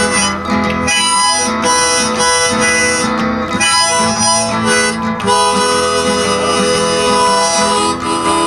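Blues harmonica playing a solo of long held notes over guitar accompaniment, in an instrumental break between sung verses.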